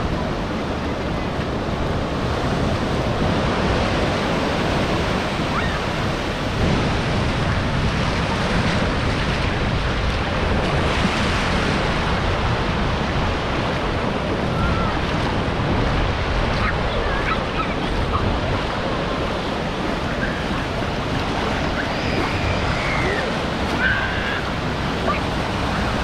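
Ocean surf: waves breaking and washing over the shallows as a steady rush, with wind buffeting the microphone.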